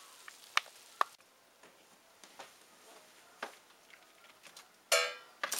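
Scattered clicks and taps of kitchen utensils on a baking pan as cooked chicken wings are lifted out into a bowl, with a louder ringing scrape near the end.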